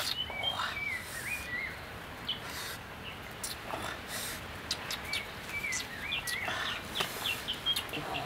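Short high-pitched animal chirps repeating throughout, many in quick pairs, with scattered sharp clicks and a few brief rustling rushes.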